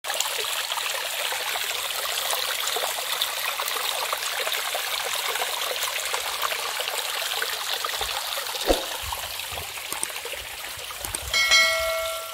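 Shallow stream water running over a flat rock slab, a steady rushing trickle, with one short knock about two-thirds in. Near the end a bell-like chime rings briefly, the on-screen subscribe-button sound effect.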